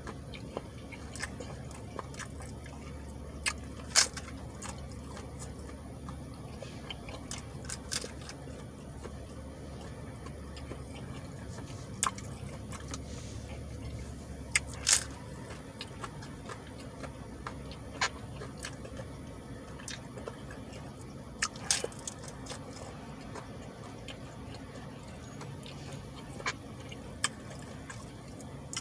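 Close-up wet chewing and mouth sounds of a person eating tacos, with scattered sharp clicks and crunches, over a steady low hum.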